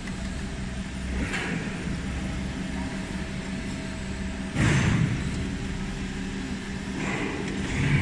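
Steady hum of a running electric machine motor, with a short, louder metallic clatter about four and a half seconds in and fainter knocks around it.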